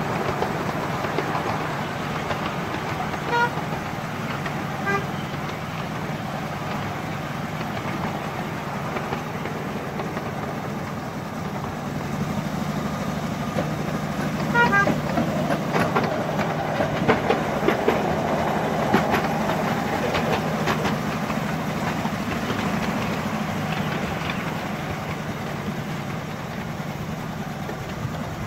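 Petrol-hydraulic miniature railway locomotive running steadily as it hauls the train, with short horn toots about three and five seconds in and again near the middle. The wheels click over rail joints and points through the middle of the run.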